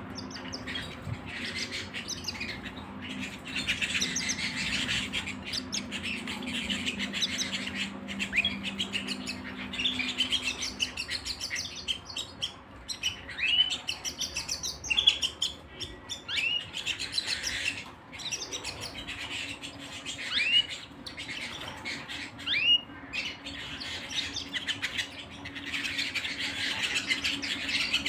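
A flock of domestic canaries chirping and trilling, with rapid repeated notes and short sweeping calls overlapping one another. A low steady hum runs underneath for roughly the first ten seconds.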